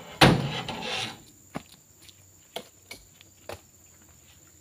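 A heavy thud followed by about a second of scraping, rustling noise, then four sharp clicks spread over the next few seconds.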